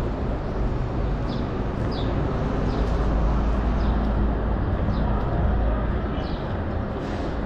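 Outdoor ambience: a steady low rumble under a wash of noise, with small birds giving short high chirps about once a second.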